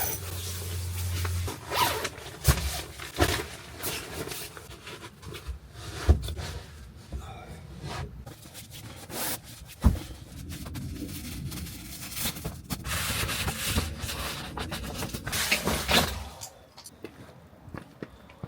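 Nylon tent fabric and bedding rustling and rubbing, with a zipper and a few sharp knocks, as someone moves about inside a truck bed tent. The rustling dies down near the end.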